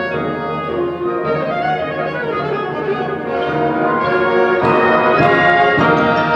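High school symphonic band playing, with brass and woodwinds holding full chords. Percussion strikes come in about two-thirds of the way through as the band grows louder.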